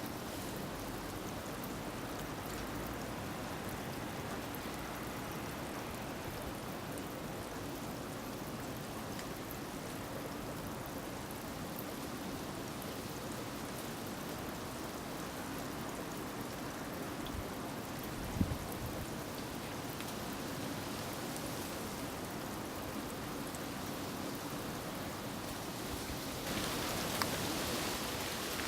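Water running steadily from a bamboo spout (kakehi) and splashing into a stone basin. About two-thirds of the way through comes one sharp clack of the shishi-odoshi's bamboo striking its stone. Near the end the splashing grows louder and brighter.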